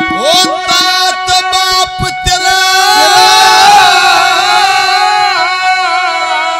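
A man singing a Haryanvi ragni into a microphone, holding long wavering notes over steady sustained accompaniment notes. A few drum hits come in the first couple of seconds.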